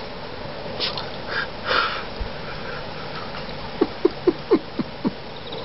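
Scottish terrier giving a quick run of about six short whimpers, each falling in pitch, over a little more than a second, after a few soft rustling noises.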